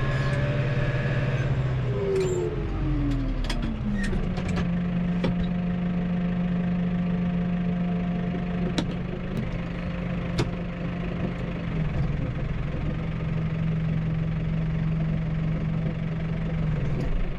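Tractor engine and drive running, heard from inside the cab. About two seconds in, a whine falls steadily in pitch over about two seconds as the mower is slowed to a stop, and then a steady hum runs on. There are a few sharp clicks along the way.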